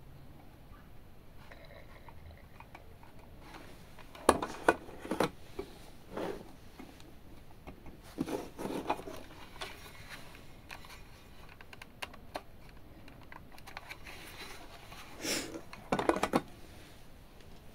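Scattered clicks, taps and knocks as a glass-topped digital bathroom scale is handled and set into its cardboard packaging tray, coming in a few short clusters.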